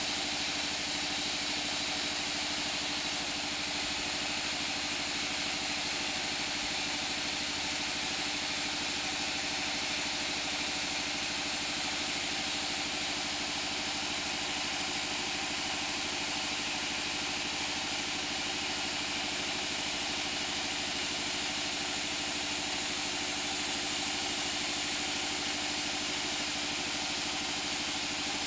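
A band saw mill, driven by its stationary engine, runs steadily while it rips a mango-wood beam lengthwise. The engine's even hum and the hiss of the blade in the wood go on without a break.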